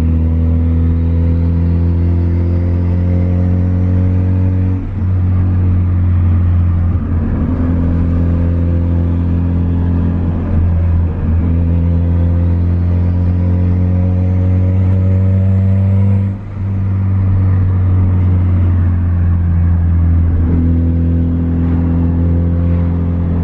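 Turbocharged 1994 Honda Civic hatchback's engine heard from inside the cabin while driving, a steady low drone that breaks briefly a few times, most sharply about sixteen seconds in. The car's exhaust manifold is cracked.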